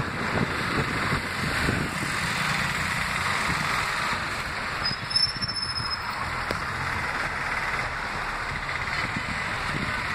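Steady road and traffic noise from a moving vehicle in heavy traffic: engine and tyre rumble with a rushing hiss. A brief high squeal sounds about five seconds in.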